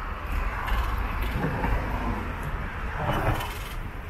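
City street noise heard from a moving bicycle: a steady low wind rumble on the microphone, with traffic passing and two louder swells, about a second and a half in and again about three seconds in.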